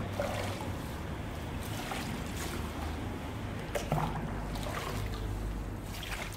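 Canal water splashing and sloshing as a metal money box is dunked and rinsed in it, with a few light knocks.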